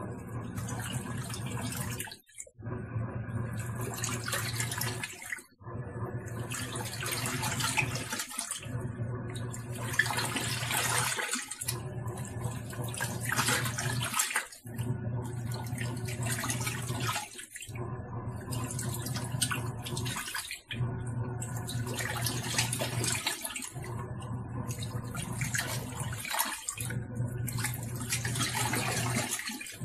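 Tangarus Mallorca portable washing machine washing: the motor hums and the pulsator churns the water. Both stop for a moment about every three seconds, as the wash cycle reverses direction.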